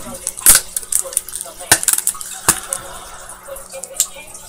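Plastic clicks and taps from handling a Samsung Galaxy S4's back cover and battery: about four sharp clicks spread out irregularly, the loudest about half a second in.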